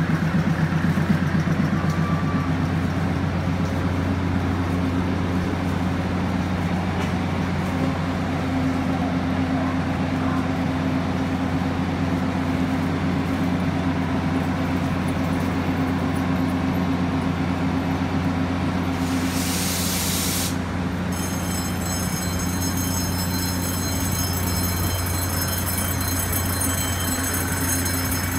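DR3000 diesel multiple unit's underfloor diesel engines idling with a steady low hum while stopped at the platform. About two-thirds of the way through comes a short burst of compressed-air hiss, and after it a set of steady high-pitched tones.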